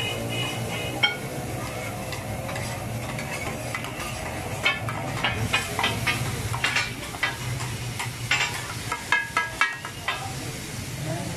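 Chopped meat sizzling in oil on a large flat iron tawa griddle while a metal spatula scrapes and stirs it. In the second half the spatula strikes the griddle again and again in a run of sharp clacks.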